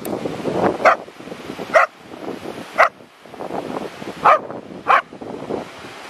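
A dog barking: five short barks, unevenly spaced, over a steady hiss of wind and surf.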